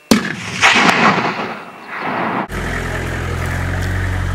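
A single rifle shot, sharp and loud, followed by about two seconds of rolling echo that fades away. Near the end a steady low drone takes over.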